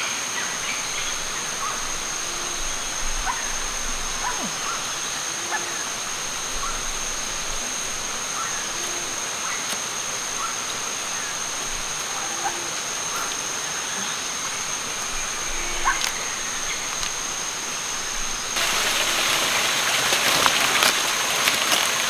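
Rainforest ambience: a steady high insect hum, scattered bird chirps, and a short low call repeating about every second and a half. About three quarters of the way through, a louder rushing of stream water cuts in.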